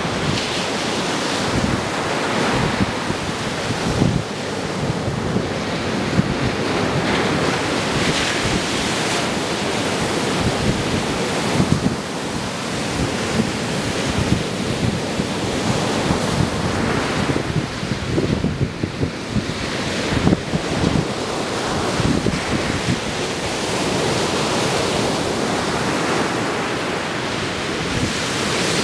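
Ocean surf breaking and washing up a sandy beach, with gusty wind buffeting the microphone in uneven low rumbles.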